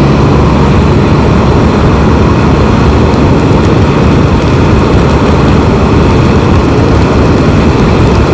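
Can-Am Spyder riding at road speed: loud, steady wind rush on the microphone over the engine running underneath, whose tone fades into the wind about a second in.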